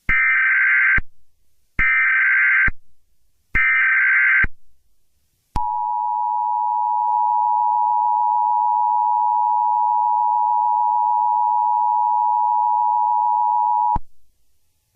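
Emergency Alert System signal: three short bursts of screechy digital header tones about a second apart, then the two-tone attention signal (853 and 960 Hz together) held steady for about eight seconds before cutting off suddenly.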